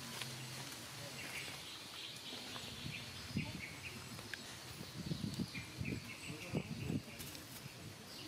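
Outdoor ambience of faint insect and bird chirping, with irregular low rustling bumps from about three seconds in that are loudest between about five and seven seconds.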